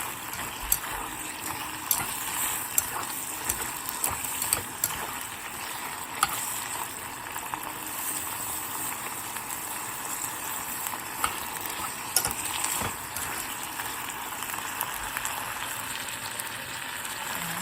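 Meat sizzling in a thickening caramel sauce in a pot, a steady hiss as the liquid cooks down. A spoon scrapes and clicks against the pot now and then as it is stirred.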